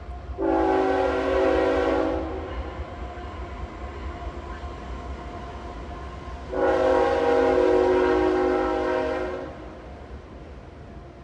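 A train horn sounding two long blasts, the first about two seconds and the second about three, each a chord of several steady tones, over a steady low rumble.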